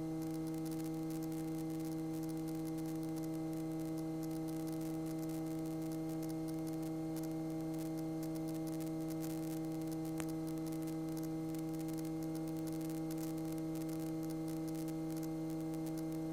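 Steady electrical hum with faint hiss in a light aircraft's cockpit intercom audio, several even tones held constant with no speech.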